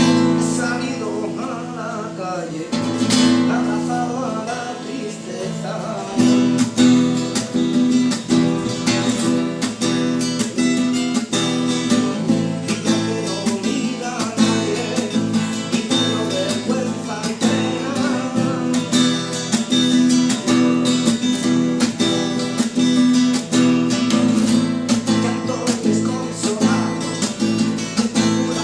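Acoustic guitar music: a softer opening, then steady rhythmic strumming from about six seconds in.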